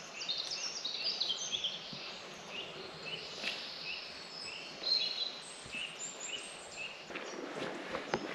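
Several songbirds singing: quick high trills in the first couple of seconds, then a short note repeated about twice a second. Footsteps on a path join in near the end.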